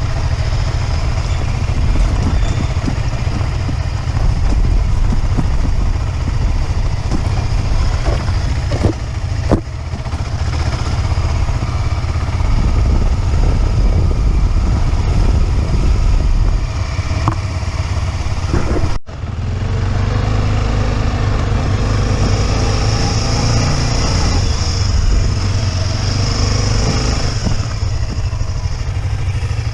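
Motorcycle engine running steadily while riding, with a few sharp knocks about a third of the way in and a momentary dropout about two-thirds through.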